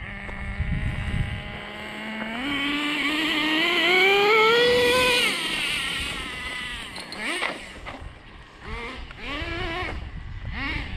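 Traxxas Slash RC truck's electric motor and gears whining. The pitch holds steady, climbs for a few seconds under full throttle, then drops off; after that come several short throttle blips, each a quick rising whine.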